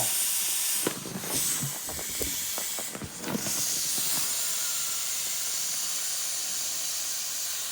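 Air hissing out of a half-deflated inflatable ball as it is squeezed, with rubbing and clicking in the first few seconds as the ball is worked out of the mask, then a steady hiss.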